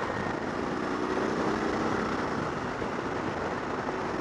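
Motorcycle riding along: a steady rush of wind and road noise with the engine running underneath at an even pitch.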